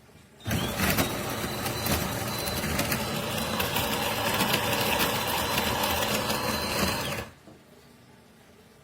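De'Longhi Rivelia's built-in burr grinder grinding coffee beans at the start of a brew cycle, a loud, even buzz that starts about half a second in and cuts off suddenly about seven seconds in.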